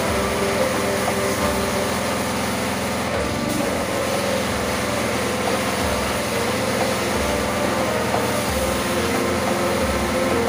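Pressure washer running with a steady mechanical drone, together with the hiss of its water jet spraying a motorcycle's rear wheel and bodywork.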